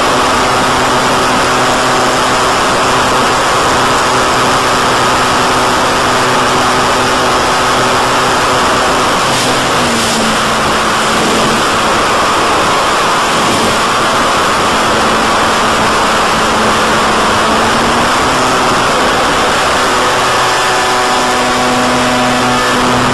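Electric pusher motor and propeller of a BTE Delta Vortex flying wing running at steady throttle, heard through the onboard microphone under a loud, steady hiss. Its pitch drops slightly about ten seconds in and comes back up near the end.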